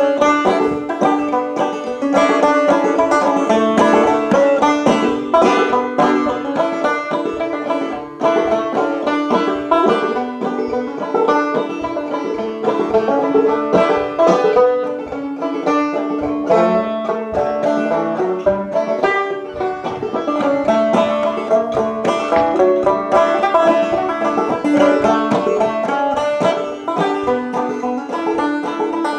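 Banjo being picked: a continuous run of quick plucked notes.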